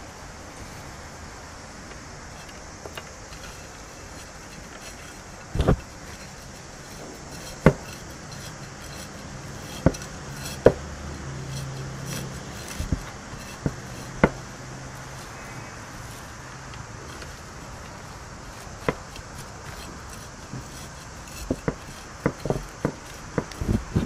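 Gloved hands handling and pressing potting soil in a ceramic pot: a soft steady hiss of handling, broken by scattered sharp knocks, with a quick run of them near the end as the soil is firmed down around the stem.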